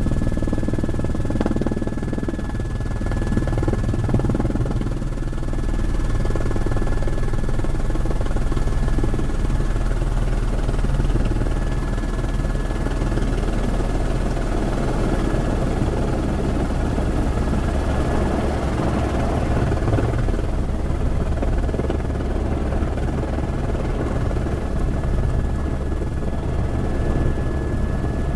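Helicopter rotor and engine noise heard from inside the cabin: a steady, loud drone with a thin high whine running over it.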